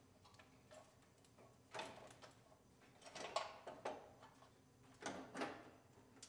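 Battery tray being fitted into the truck's engine bay: a handful of faint clicks and light knocks, one about two seconds in and a cluster in the second half.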